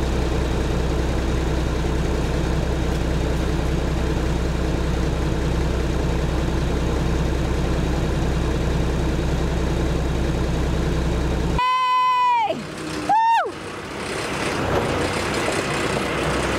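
Steady low drone of truck engines under load as a dump truck tows a pickup out of a snowbank on a chain. About twelve seconds in the drone cuts off abruptly, and two short high tones follow, each sliding in pitch, the first one falling.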